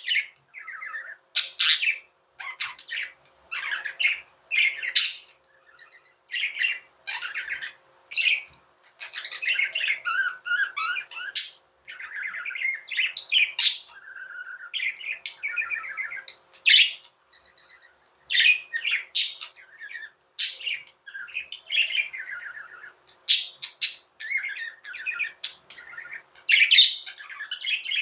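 Budgerigars chirping and warbling in quick, broken bursts of chatter with short pauses between.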